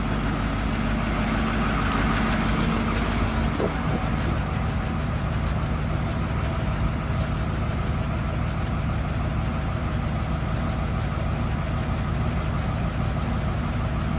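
Heavy diesel engine of the recovery boom crane running steadily while it holds the lifted crane, with a constant low hum. One higher tone in it drops out about three to four seconds in.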